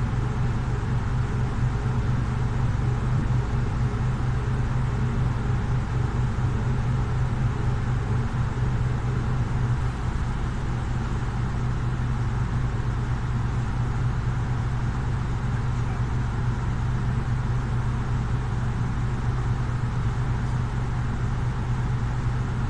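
Solaris Urbino 18 IV articulated city bus's Euro 6 diesel engine and drivetrain running, heard from inside the passenger cabin as a steady low hum.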